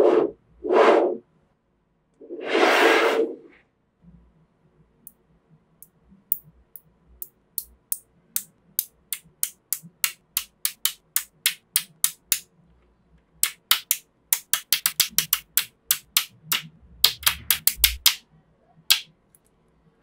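Small neodymium magnet balls clicking sharply as they snap onto one another one at a time, with the clicks coming sparse at first and then in quick runs. This is a strand of balls being packed into a flat hexagonal sheet. Three soft swishes come in the first few seconds, before the clicking starts.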